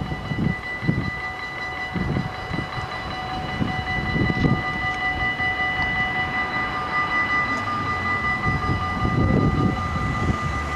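Warning bells of a Dutch railway level crossing ringing as a steady, high, multi-toned signal: the crossing is closing for an approaching train. Gusts of wind rumble on the microphone underneath.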